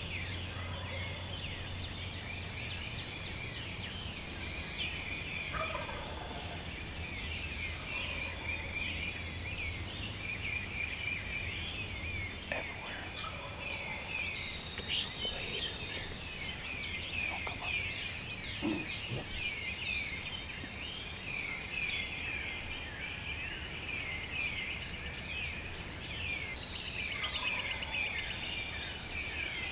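Wild turkey gobblers gobbling from the woods at daybreak, with a few rattling, falling gobbles, the clearest about 6 seconds in and near the end. Behind them runs a dense dawn chorus of songbirds chirping and trilling.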